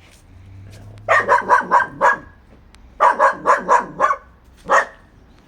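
A dog barking in two quick runs of about five barks each, then a single bark.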